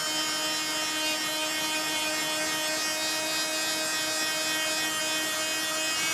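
Wolf Combo Tool Plus oscillating multi-tool (260-watt motor) sanding a wooden door frame with its delta sanding pad, while a vacuum cleaner draws the dust off through the tool's extraction hose. The two motors give a steady whine over a rushing hiss.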